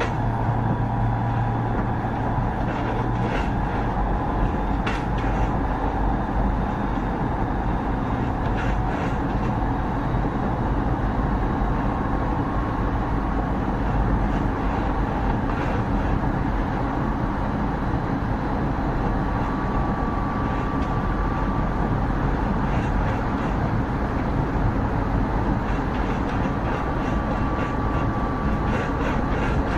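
JR 209 series 2000-subseries electric multiple unit running at speed: a steady rumble of wheels on rail with scattered clicks, and a faint whine that comes and goes from its Mitsubishi Electric IGBT VVVF traction equipment.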